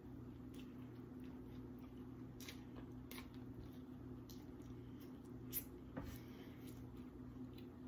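Faint wet chewing and mouth clicks of someone eating a hamburger, with two sharper clicks about five and a half and six seconds in, over a steady low hum.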